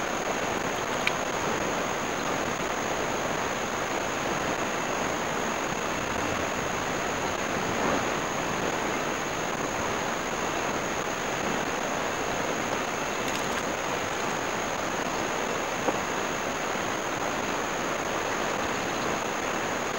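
Steady wash of ocean surf, even and unbroken, with a constant thin high-pitched tone over it.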